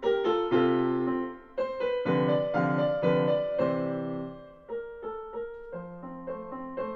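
Yamaha Clavinova digital piano playing a preset piece through its own speakers, picked up in the room by a stereo pair of small condenser microphones. Full sustained chords, turning softer with lighter single notes about five seconds in.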